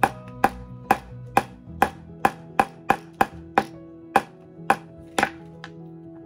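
A hammer tapping repeatedly, about two strikes a second, the taps stopping about five seconds in. Background music with held chords plays underneath.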